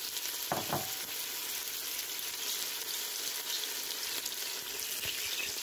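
Chopped onion sizzling steadily in hot olive oil in a pot, just added and starting to fry.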